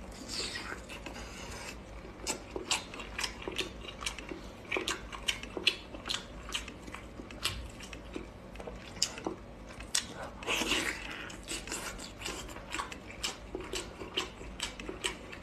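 Close-miked eating of lobster tail meat: wet biting and chewing with many irregular mouth clicks and smacks, and two longer breathy smears, near the start and about two-thirds through.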